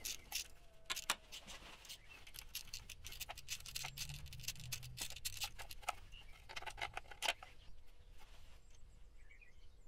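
Small socket ratchet clicking in short, irregular runs as an 8 mm bolt is unscrewed, with a quick burst of clicks shortly before the bolt comes free.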